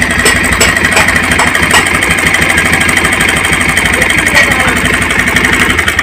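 Bajaj Pulsar 150's single-cylinder engine idling with a steady jingling rattle ('jhanar jhanar') from the timing chain, which the mechanic puts down to a slack chain needing its tensioner adjusted.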